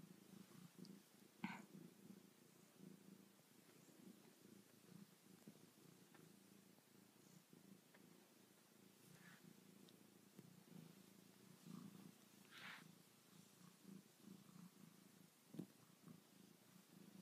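Domestic cat purring, faint and steady, as it is stroked. Two short rustles stand out, about a second and a half in and again about twelve and a half seconds in.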